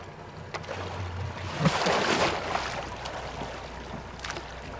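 Water sloshing and splashing at a boat's side, louder for about a second around two seconds in, over the low steady hum of an outboard engine.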